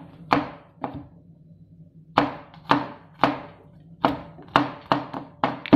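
Kitchen knife chopping garlic on a plastic cutting board: separate sharp knocks of the blade on the board, a short pause about a second in, then the strikes coming faster near the end.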